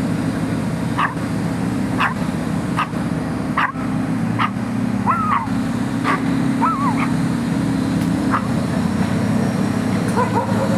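A dog barking in short yips roughly once a second, two of them drawn out into whining yelps about halfway through, over the steady low drone of construction machinery's engine.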